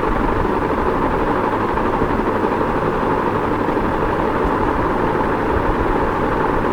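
Ceiling fan running steadily: an even whooshing hum with no change in speed.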